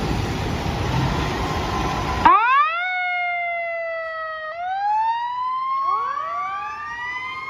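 A toy fire truck's siren wails. A rush of noise runs for about two seconds and cuts off suddenly. Then the siren starts: a quick rise in pitch, a slow fall, then a second rise with more rising sweeps overlapping it.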